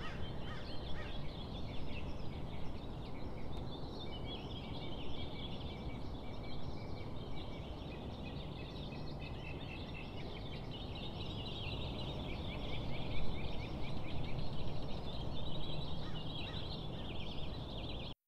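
Outdoor birdsong: several small birds chirping and trilling, with a busier run of trills in the middle, over a steady low background rumble.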